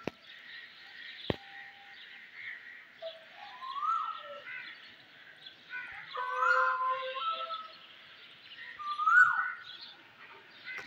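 Early-morning chorus of many birds chirping together. A louder bird call repeats about three times, each one rising, held briefly and then dropping. There is a single sharp click about a second in.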